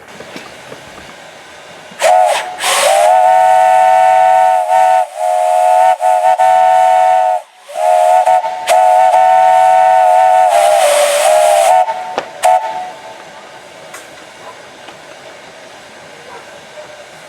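3-inch Lonergan three-chime steam whistle blowing on low-pressure steam: two long blasts sounding a steady three-note chord, with a rush of steam hiss as the first opens and again near the end of the second. Before and after the blasts a faint steady hiss carries on, from a valve that leaks a little.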